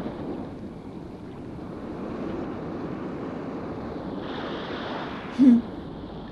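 Steady wind-and-water rush that swells briefly about four seconds in, with a short murmur from a person about a second later.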